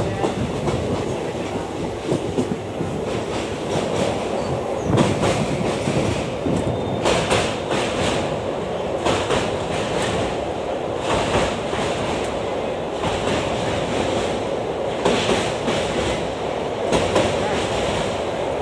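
Pinakini Express passenger coaches running at speed, heard from an open coach door: a steady rumble and rush of wheels on rails, with sharp clacks at uneven intervals as the wheels cross rail joints on the river bridge.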